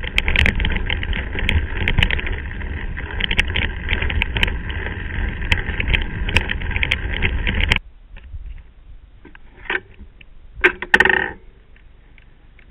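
Mountain bike rolling fast over a rough gravel dirt track: tyres crunching on stones, the bike and camera mount rattling in quick clicks, and wind rumbling on the microphone. It cuts off abruptly about eight seconds in to quiet open air, with one short call near the end.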